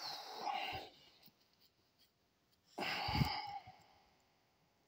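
A man breathing audibly twice, close to the microphone: once at the start and again about three seconds in, each breath under a second long.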